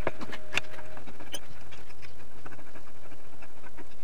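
Light metallic clicks of an Allen key turning screws in the aluminium extrusion frame of a laser engraver: a few sharp clicks in the first second and a half, then fainter ticking.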